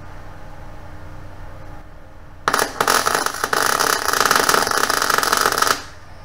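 MIG welding arc on steel, crackling and spitting unevenly for about three seconds from about two and a half seconds in, then cutting off, with a steady low hum before it. The welder is at 24 volts with the wire speed turned down to about 100, and the uneven arc is the sign of not enough wire speed for that voltage.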